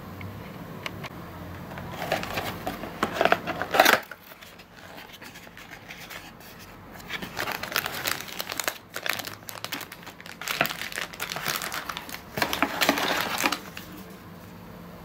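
Cardboard toy box and its clear plastic packaging being handled and opened: crinkling, rustling bursts, loudest just before four seconds in, then on and off from about seven to thirteen seconds.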